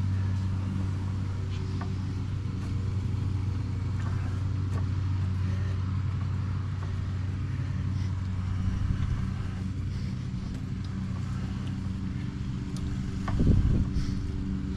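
A motor vehicle's engine idling with a steady low hum, and a brief louder swell near the end.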